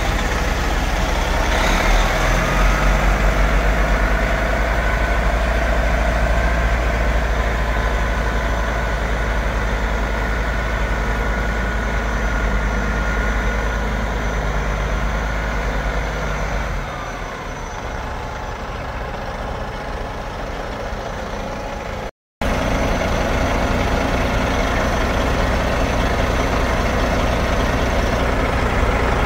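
Detroit Series 60 inline-six diesel in a Freightliner FLD120 dump truck idling steadily, cutting out briefly about three-quarters of the way through.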